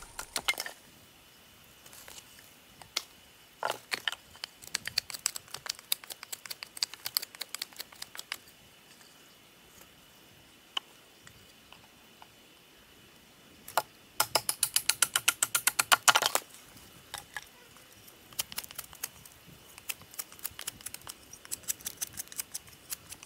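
Knife being batoned down through a dry cottonwood limb along its natural crack to split it: scattered sharp wooden knocks and cracks. Around the middle comes a fast, louder run of about eight knocks a second lasting two seconds.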